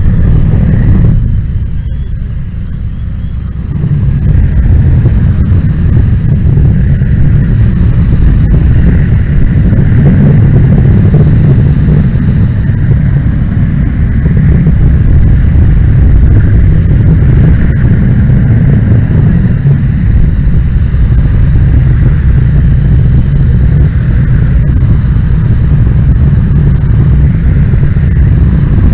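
Firefighting handline nozzle flowing a foam stream close to the microphone: a loud, steady rush that drops off briefly and comes back in full about four seconds in.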